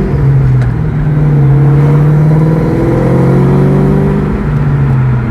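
Ford Mustang SVT 'Terminator' Cobra's V8 running under load while driving, its note dropping and picking up again a few times as the throttle and gears change.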